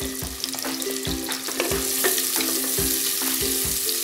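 Sliced onions sizzling steadily in hot oil, with a wooden spatula stirring them toward the end. Background music with a simple melody and a steady beat plays underneath.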